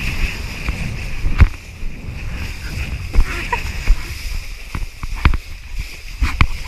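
Wind and rushing water on a mouth-held GoPro as a kiteboard skims over choppy sea, with several sharp thumps as the board slaps the chop.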